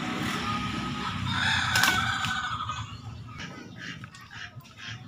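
A rooster crowing once, about a second in, with a held, strained call. A run of short sharp taps follows in the second half.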